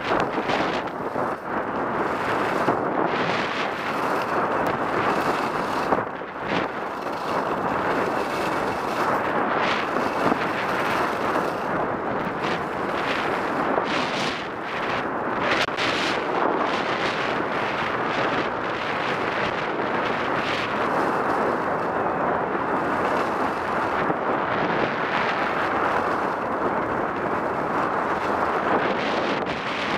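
Wind rushing over the microphone of a skier's camera during a downhill run, mixed with the steady hiss and scrape of skis carving on packed snow; short louder scrapes come in a cluster midway.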